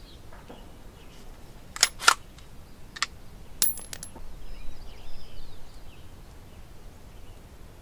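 Sharp metallic clacks of an ATI Omni Hybrid AR-15 pistol's action being worked by hand to clear a failure-to-eject jam. Two quick clacks come about two seconds in, then a lighter click, then a bright ringing clink. The jam comes from the next round feeding before the spent case is ejected, which dents the next round.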